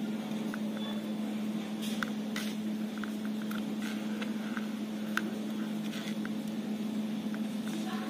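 A steady low hum runs throughout, with faint scattered ticks and rustles of hands winding thread around a USB cable.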